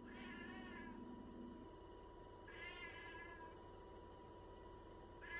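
Domestic cat meowing twice, about two seconds apart, with a third meow starting at the very end, begging for a snack.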